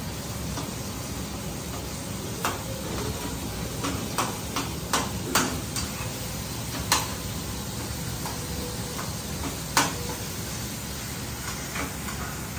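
A slotted metal spoon stirring chopped onions and tomatoes as they fry in a pan, the food sizzling steadily, with about half a dozen sharp knocks of the spoon against the pan, the loudest about seven and ten seconds in.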